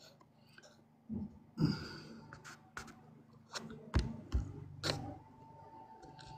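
Faint, scattered small clicks and a few soft knocks, with a faint steady tone coming in about five seconds in.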